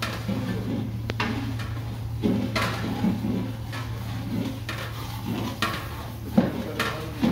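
Metal utensils knocking and clanking against large aluminium stockpots now and then, over a steady low hum.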